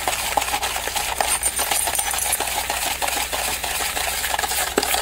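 Whisk stirring dendritic salt in a clear plastic tub: a steady gritty scraping of salt grains, with small clicks as the whisk strikes the tub.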